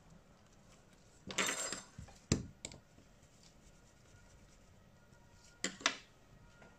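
Small hand tools and parts clinking on a hard work surface: a short clattering rattle about a second and a half in, a sharp click shortly after, and two more clicks near the end.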